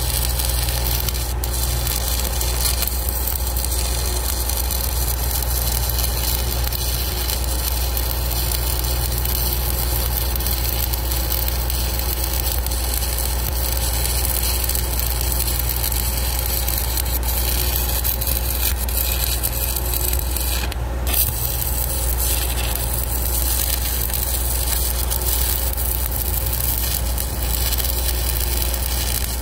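Stick welding with a 1/8-inch 7018 electrode (Lincoln Excalibur) at about 126 amps: the arc crackles and sizzles steadily as the bead is run. The crackle breaks for a moment about two-thirds of the way through, then carries on.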